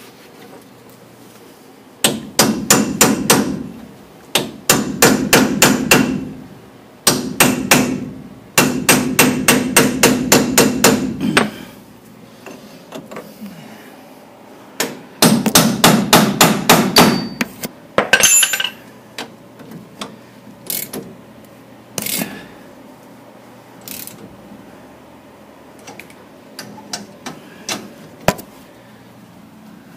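Steel hammer hitting a jaw puller clamped on a stuck Dana 44 front-axle stub shaft, to shock it loose. Metallic blows come in rapid volleys of several a second with short pauses between, then thin out into single, lighter strikes in the second half.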